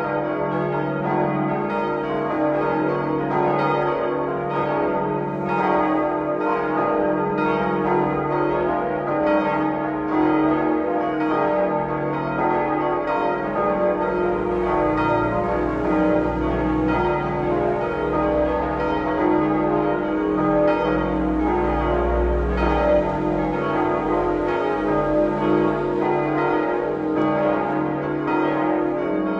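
Several church bells of the Liebfrauenkirche ringing together in a full peal, strikes of different pitches overlapping without a pause.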